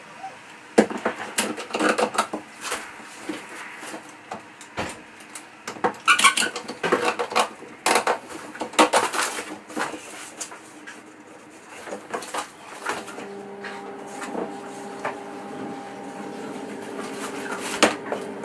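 A wooden fascia board being knocked and clamped into place under a bunk bed: a run of knocks, clicks and clatters as the board is handled and quick-grip bar clamps are tightened. A steady hum comes in during the last third.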